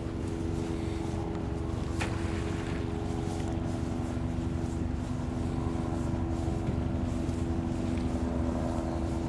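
A steady motor hum holding a few fixed tones, over a low wind rumble on the microphone, with one brief click about two seconds in.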